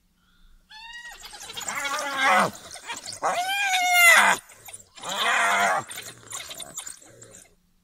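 African wild dogs and spotted hyenas calling while contesting a kill: three bursts of high-pitched squealing, twittering calls that rise and fall in pitch, the loudest about four seconds in, tailing off into fainter calls.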